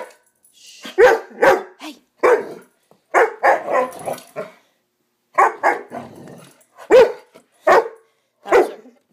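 A young Greater Swiss Mountain Dog barking at a person, short loud barks coming in quick runs of two or three with a brief pause about halfway.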